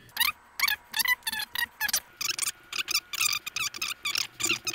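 Music track of the animation playing back: a quick, regular series of short notes, each sliding upward in pitch, about three or four a second.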